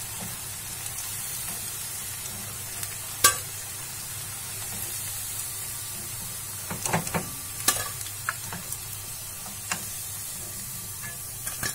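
Oil sizzling steadily as vegetable Manchurian balls finish deep-frying golden brown, with sharp metal clinks of a slotted steel spoon against the pan as the balls are lifted out: one a few seconds in and a cluster past the middle.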